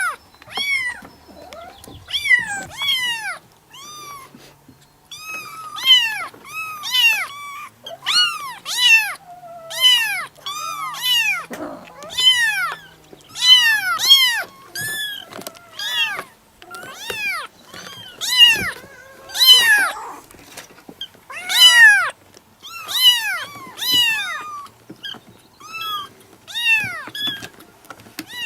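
Kitten meowing over and over: short, high-pitched meows that rise and fall in pitch, one or two a second, sometimes overlapping.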